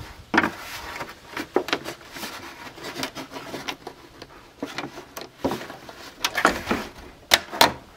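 Tin snips cutting through a plastic plant pot: an irregular series of sharp crunching snips and cracks, loudest near the end.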